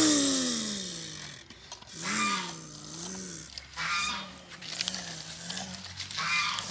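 A person's voice making truck-engine noises for a hand-pushed toy dump truck. It opens with a long falling drone, then settles into a steady wavering hum that swells and dips every half second or so.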